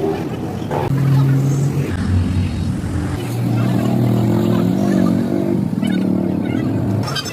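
A vehicle engine running steadily, its pitch shifting a few times, with voices over it.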